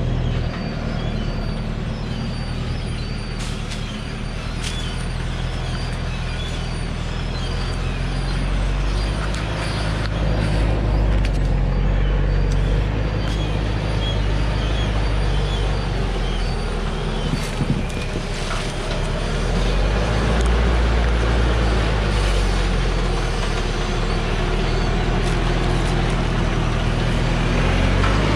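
Dongfeng diesel log truck's engine running low and steady as the heavily loaded truck crawls down a rutted dirt track, growing louder as it comes close.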